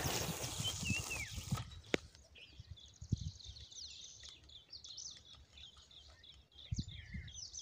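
A spinning-rod cast with a spoon lure: a rushing hiss of line paying off the reel spool for about a second and a half. After that, birds chirp repeatedly in short high calls, with a few soft knocks.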